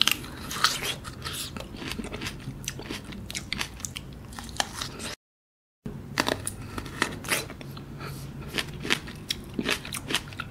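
Close-miked biting and chewing of juicy cherry plums: repeated short wet smacks and squelches of teeth through plum skin and flesh. The sound cuts out to silence for a moment about five seconds in.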